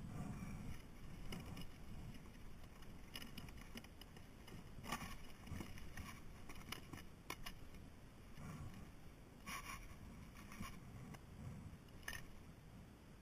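Kayak on the water: a few scattered paddle splashes and small clicks, about five seconds in, around ten seconds in and again near the end, over a low rumble of water and wind.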